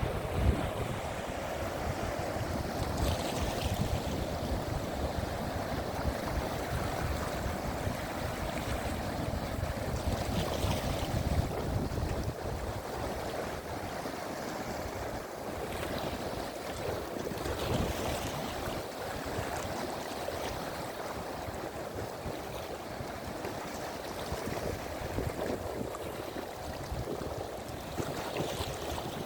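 Sea surf washing onto the shore, its hiss swelling every several seconds, with wind buffeting the microphone in a steady low rumble.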